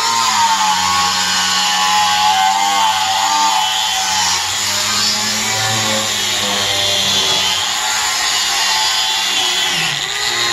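Corded angle grinder with a steel wire cup brush scouring rust off a cast-iron cauldron lid. A steady motor whine wavers in pitch as the brush is pressed and moved across the iron, over a harsh scraping hiss.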